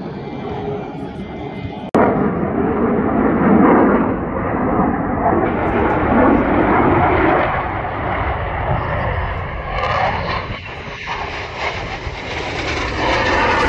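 Jet fighter's engines roaring as it flies an aerobatic display overhead. The roar jumps suddenly louder about two seconds in, then swells and fades as the aircraft moves across the sky.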